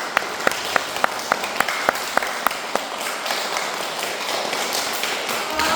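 A hall of young children applauding. Loud, sharp claps from one nearby clapper stand out at about three or four a second for the first three seconds, then the applause carries on as an even patter.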